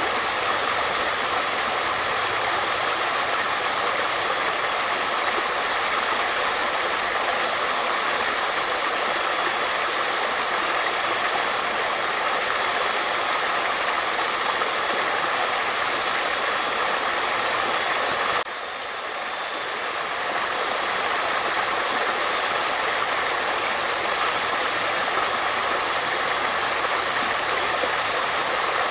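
Flowing water rushing steadily. The sound drops suddenly about two-thirds of the way through, then builds back to full within a couple of seconds.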